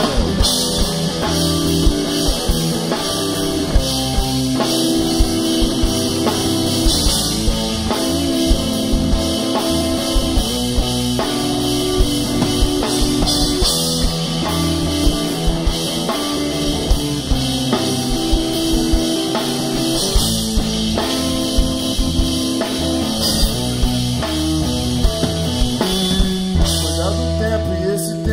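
Rock band playing live without vocals: electric guitar, electric bass and drum kit, with a steady beat of drum hits.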